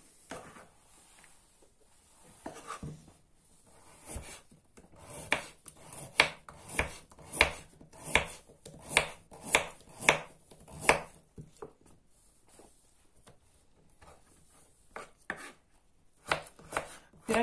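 Kitchen knife cutting a carrot on a wooden cutting board: a run of sharp knocks about once or twice a second through the middle, then a pause and a few more cuts near the end.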